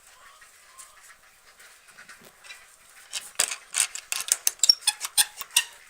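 A quick, irregular run of sharp clicks and taps, several a second, starting about three seconds in.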